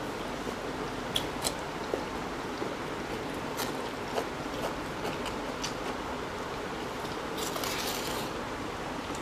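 Close eating sounds of two people eating rice and curry by hand: scattered small clicks and smacks of chewing and fingers working the rice, over a steady background hiss. About seven seconds in, a short scrape as a steel plate is slid across the tabletop.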